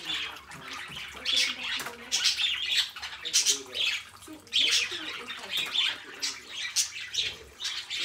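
A flock of budgerigars chattering: a continuous run of sharp chirps and squawks over softer warbling.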